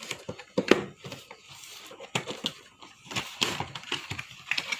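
Packaging being handled and opened by hand: irregular clicks, knocks and rustles of the trimmer's box and plastic wrap.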